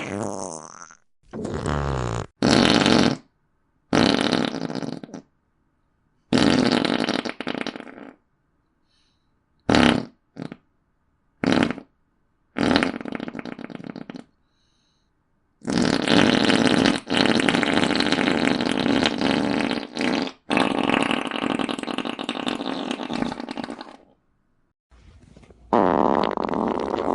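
A series of about a dozen fart sounds with silent gaps between them, some brief pops and others drawn out for several seconds.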